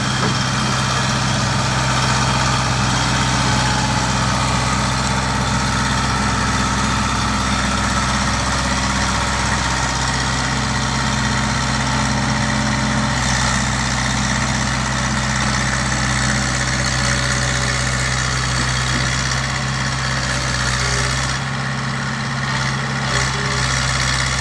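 Volvo excavator's diesel engine running steadily at low revs.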